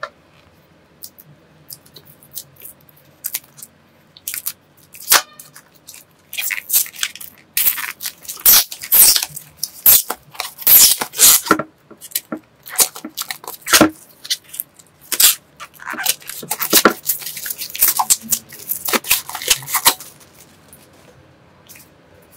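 Clear plastic shrink-wrap being torn and peeled off a paperback book, crinkling in a dense run of sharp crackles that starts sparsely, is loudest through the middle, and stops about two seconds before the end.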